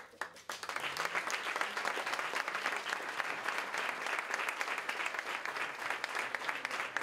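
Audience applauding with steady, continuous clapping that swells in about half a second in.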